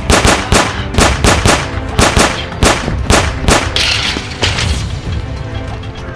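A rapid, uneven volley of sharp gunfire-like shots, about a dozen over some four seconds, over action background music.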